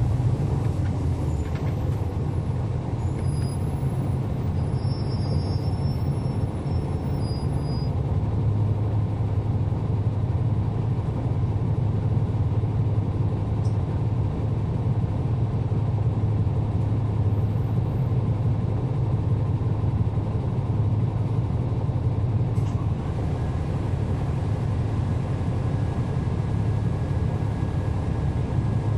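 NABI 40-SFW transit bus heard from on board: its Cummins ISL9 diesel engine and ZF Ecolife 6AP-1400B automatic transmission run as a steady low drone. A faint high whine joins near the end.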